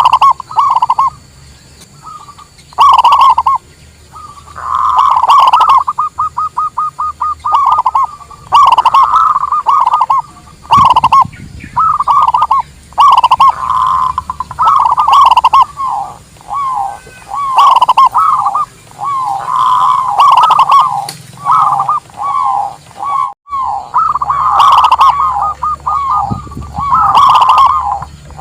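Local zebra doves (perkutut) cooing in rolling, stuttering phrases, one call following the next almost without pause. About six seconds in there is a quick run of short repeated notes.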